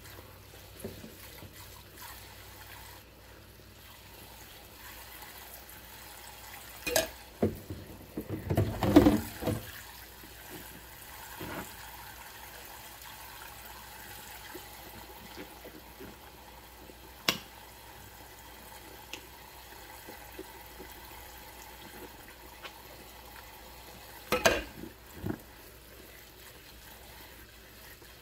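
Dishwashing at a stainless steel sink full of suds: a thin stream of tap water runs into the basin while a glass jar is scrubbed with a mesh scrubber by rubber-gloved hands. A few sharp knocks and clatters break the steady water sound, loudest in a cluster about a third of the way in, with a single knock later and a pair near the end.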